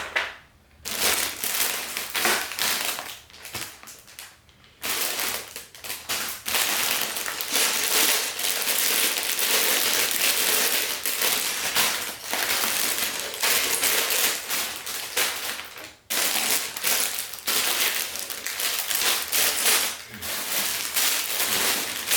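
Crinkly plastic parts bags of a Lego set being handled and opened, with the small plastic pieces inside rattling. The noise comes in long stretches broken by a few short pauses.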